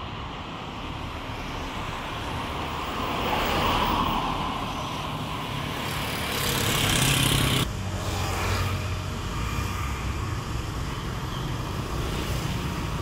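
Road traffic: cars driving past on a city street, swelling as vehicles go by about 4 s and 7 s in; the second swell cuts off abruptly about 7.5 s in.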